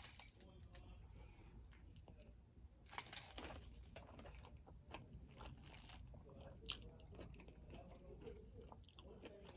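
Faint close-up chewing of a burrito, with scattered short crisp clicks and crunches from the mouth.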